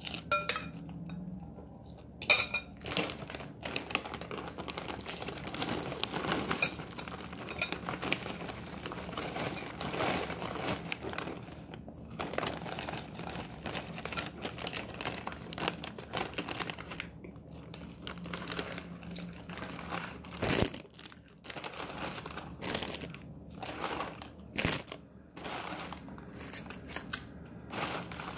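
Plastic salad-kit bag crinkling and rustling as a hand rummages inside it, with a few sharp clicks.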